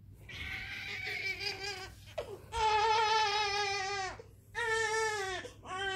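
Newborn baby crying: four wails in a row with short catches of breath between, each dropping in pitch as it ends.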